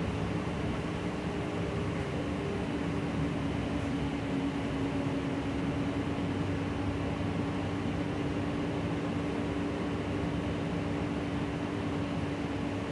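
Steady cabin drone of a Gillig low-floor city bus under way: engine and road noise with a steady hum.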